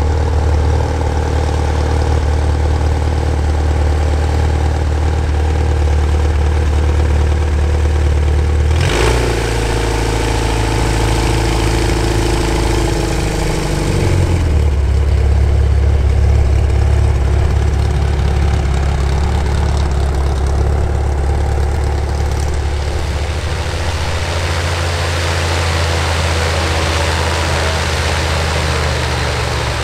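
Sonex homebuilt light aircraft's piston engine and propeller running at low taxi power, a steady engine note. The note changes about nine seconds in and drops briefly about fourteen seconds in, then holds steady.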